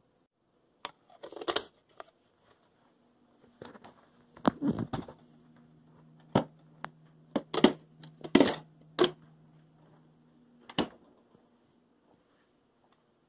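Sharp clicks and knocks of containers, lids and bottles being handled on a kitchen counter and in an open refrigerator, about eight in all. A low steady hum runs under them from about three seconds in until near the end.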